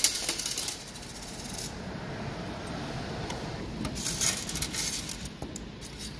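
Coins clinking in the metal change tray of a ticket vending machine as they come out and a hand scoops them up. The clatter comes at the start and again about four seconds in.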